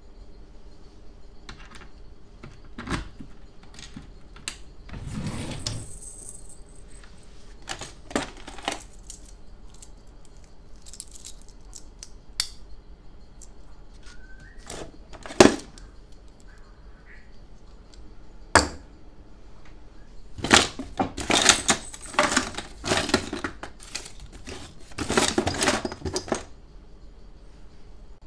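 A drawer being opened, then hands rummaging through a drawerful of small plastic and metal odds and ends: scattered clicks and knocks, and dense bursts of items clattering against each other in the second half.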